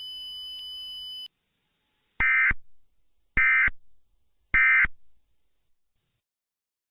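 Emergency Alert System end-of-message data bursts: three short, identical digital squawks about a second apart. They come after a faint steady high tone cuts off about a second in.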